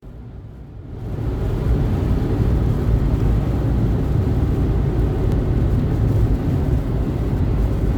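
Heavy rain heard from inside a car: a steady, dense low rumble of the downpour on the body, swelling up over the first second and then holding.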